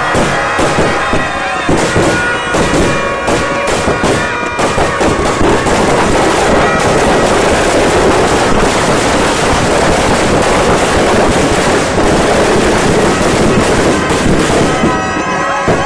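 Firecrackers inside a burning effigy going off: rapid bangs that thicken into a dense, continuous crackle through the middle. Music plays under the bangs at the start and comes back near the end.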